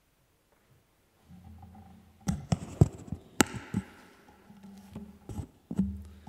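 Handling noise on a lectern microphone: a quick run of sharp knocks, taps and clicks about two seconds in, with a few more later, over a low rumble picked up close on the mic as someone settles at the lectern and handles it.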